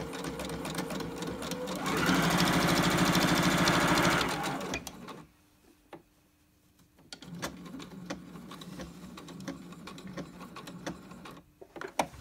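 Electric sewing machine stitching through layers of fabric, a quarter-inch seam across the end of a pocket. It runs for about five seconds, fastest and loudest in the middle, stops, then starts again about seven seconds in for a softer second run on the other end, with a few clicks near the end.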